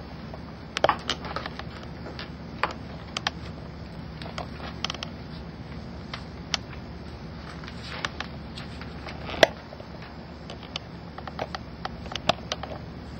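Pages of an old bound book and loose sheets of paper being handled and turned: scattered rustles, taps and clicks over a steady low hum.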